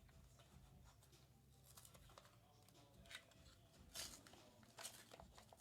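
Near silence with a few faint, short rustles and scrapes of a cardboard card box being worked open, about three seconds in and again near the end.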